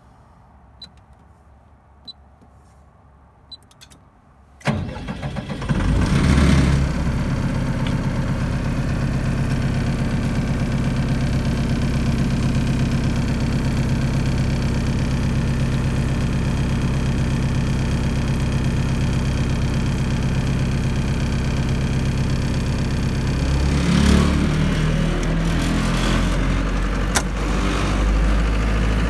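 A few faint clicks as the control panel buttons are pressed, then about five seconds in the 26 kW Cummins diesel generator cranks, catches quickly and settles into a steady run. Near the end the engine sound becomes fuller and deeper.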